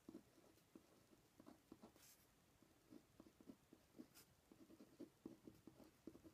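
Faint scratching and tapping of a Uni-ball Eye Micro rollerball pen writing a word on a pad of paper, in many short strokes.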